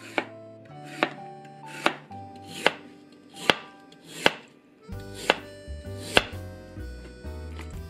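Kitchen knife slicing a raw lotus root into thin rounds on a cutting board: a crisp cut ending in a knock on the board, about every 0.8 seconds, some eight strokes. Soft background music with held notes plays underneath.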